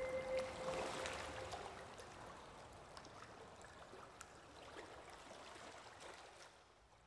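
The background music fading out at the end of a track. Its last held notes die away about a second and a half in, leaving a faint hissing wash with scattered soft clicks that fades steadily towards silence.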